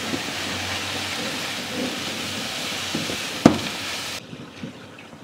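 Sliced button mushrooms sizzling and hissing in a hot dry frying pan as they give off their water as steam, stirred with a silicone spatula. A single sharp knock about three and a half seconds in; the hiss drops away abruptly about a second later, leaving softer stirring.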